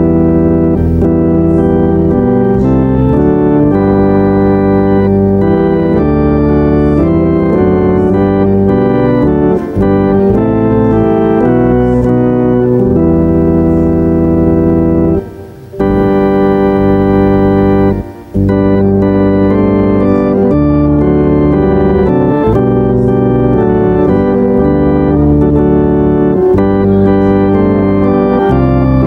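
Church organ playing in full, sustained chords that change every second or two, with two short pauses between phrases just past the middle.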